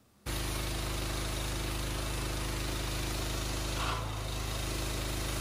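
Honda GX390 single-cylinder engine running steadily at working speed on a gas pressure washer, with the hiss of the high-pressure water jet spraying against a vehicle. It cuts in sharply about a quarter second in.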